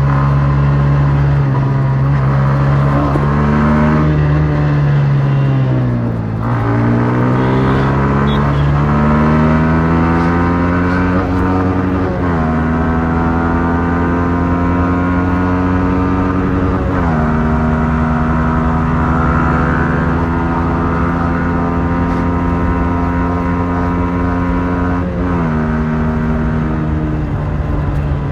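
Stock exhaust of a Yamaha MT-15's 155 cc single-cylinder engine under way, the engine note dropping about six seconds in and then climbing as the bike pulls, with sudden changes in pitch at gear shifts several times.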